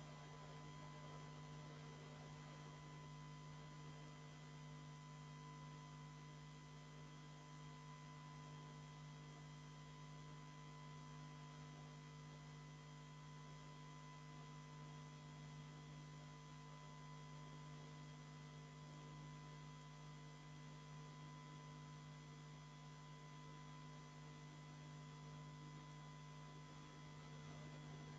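Near silence with a steady electrical hum and faint thin whine tones, unchanging throughout.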